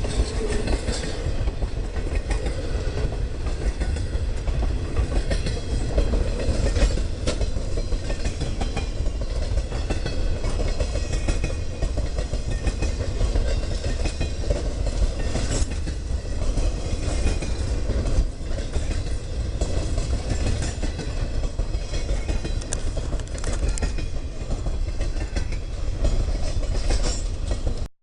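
Freight train cars rolling past on the rails: a steady rumble of wheels with repeated clicks as the wheels cross rail joints.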